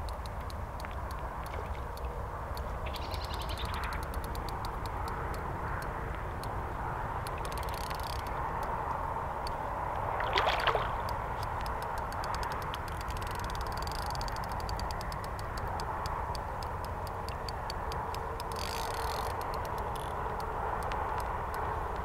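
Water splashing once about halfway through, from a hooked carp thrashing in shallow margin water, over a steady run of fast, fine ticking.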